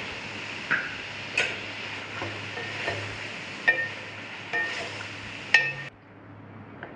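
Wooden spatula stirring chicken and cream in a metal karahi, scraping and knocking against the pan about seven times at roughly one-second intervals. Under it runs a steady hiss that stops abruptly near the end.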